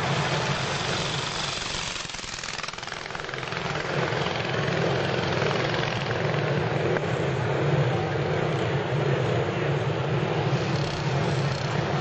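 Antique racing motorcycle engines running loud and unmuffled. The sound dips briefly about two seconds in, then builds back up.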